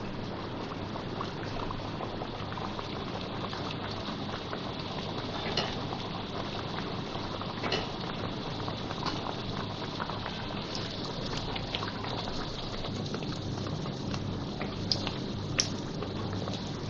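Aloo kachori deep-frying in hot oil: a steady sizzling and bubbling crackle, with a few short, sharp clicks in the middle and near the end.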